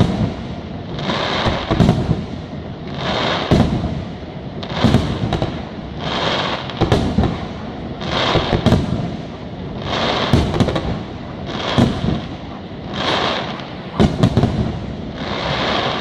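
Aerial firework shells bursting in quick succession, a sharp bang about every second. Between the bangs a high hiss swells and fades.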